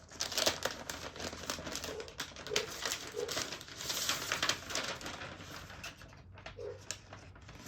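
Paper packaging being handled and peeled away, a dense crinkly rustling, with a few short low hoot-like notes in the background.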